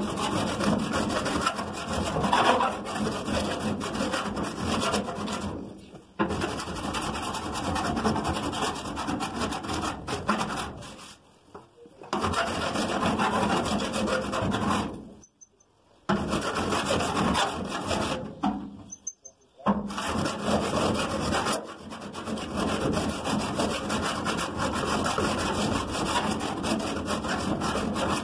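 A body file rasping back and forth over lead loading on a car body panel, with squeaks as the file is angled to follow the curve of the panel. The filing comes in long runs of steady strokes, broken by four short pauses.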